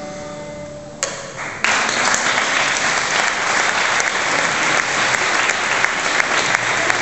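Music dying away, then an audience applauding, starting suddenly about a second in and clapping steadily.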